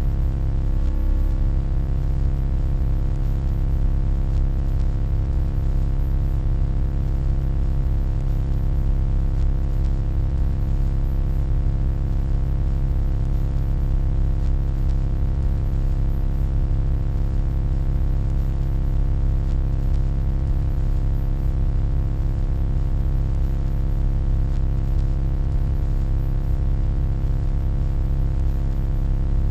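Steady, unchanging electronic hum: a deep drone with many evenly spaced overtones over a faint hiss.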